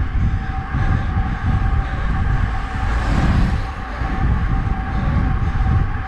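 Wind rush and rumble on an action camera's microphone, with tyre noise, from a road bike rolling at about 32 km/h on Roval Rapide CLX64 deep-section carbon wheels. A faint steady tone sits above the rumble, and the hiss swells briefly about three seconds in.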